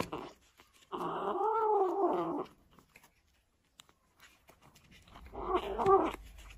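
Orange kitten giving a drawn-out growling yowl, rising and then falling in pitch, about a second in, and a shorter wavering one near the end. It is guarding its food bowl from a hand reaching toward it.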